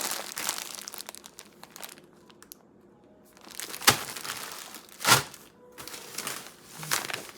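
Plastic food packaging crinkling and rustling as groceries are handled and taken out of a box, with a sharp knock about four seconds in and a louder one about a second later.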